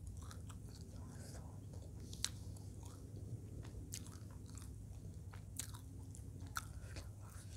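Close-miked chewing of a mouthful of fried eel and rice, broken by a few sharp, crisp crunches and clicks.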